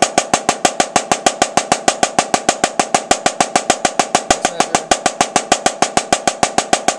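Drumsticks playing a slow, even open double-stroke roll on a snare drum, about eight strokes a second with each hand bouncing two strokes.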